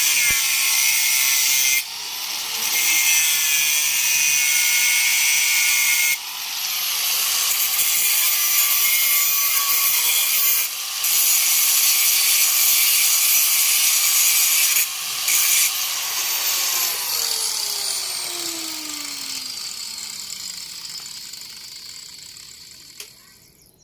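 Angle grinder with a cut-off disc cutting metal in several long passes with brief let-ups. About two-thirds of the way through it is switched off and the motor winds down, its pitch falling steadily as it fades.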